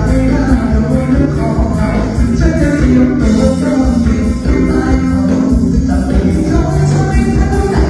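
Live band music with a singer through a PA: a Thai song with a steady beat and light percussion.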